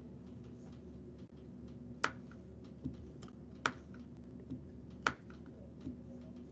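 Clicks at a computer: three sharp clicks about a second and a half apart, with a few fainter ticks between them, over a low steady hum.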